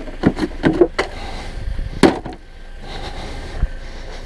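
Car ramps being pulled free and set down: a quick run of hard knocks and clatters in the first second, then one louder bang about two seconds in.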